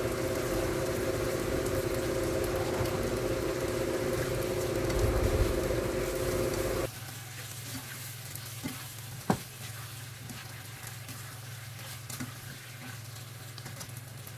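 Shrimp cooking in a sauce in a frying pan while a plastic spatula stirs them, with clicks of the spatula against the pan and one sharper knock about nine seconds in. For the first seven seconds a steady hum runs with the cooking, then cuts off suddenly and leaves a quieter hiss.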